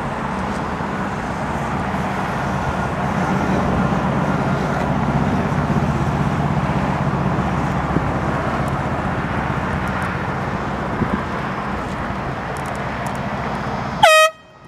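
Steady rumble of steam locomotives working hard in the distance as they approach. Near the end there is a brief, loud, high-pitched whistle-like tone that cuts off abruptly.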